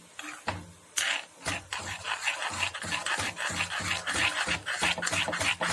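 Spatula scraping and stirring a thick onion, chilli and tamarind chutney paste around a non-stick kadai, in rapid strokes, several a second, starting about a second in. The paste is being sautéed in oil until it thickens and the oil separates.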